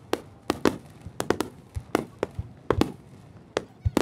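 Aerial fireworks bursting: a quick, uneven run of about a dozen sharp bangs, some carrying a deep boom, each dying away briefly.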